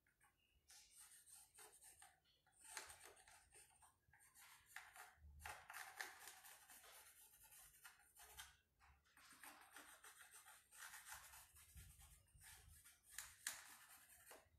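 Faint scratchy strokes of a pencil drawing on the rough wooden top of a cable spool, coming in runs of one to a few seconds with short pauses between.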